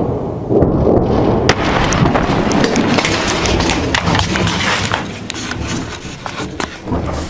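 Heavy rumble from a large missile-strike explosion, with many sharp cracks and pops on top, easing after about five seconds.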